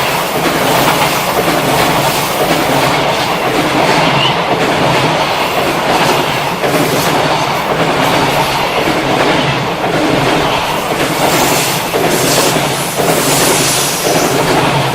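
Freight train passing close by, its wagons' wheels clattering steadily over the rail joints.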